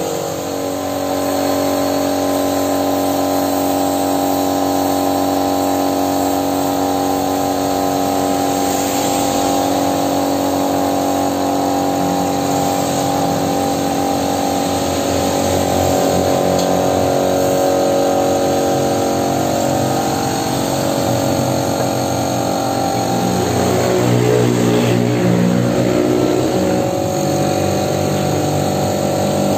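Air compressor for a paint spray gun running with a steady hum, the spray gun in use on the spoiler. The hum shifts a little about 24 seconds in.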